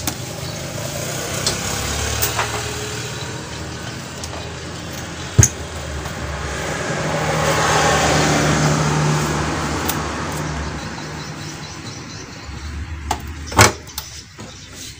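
A road vehicle passing by: a rushing sound that swells and then fades over several seconds. Two sharp clicks or taps come about five seconds in and near the end.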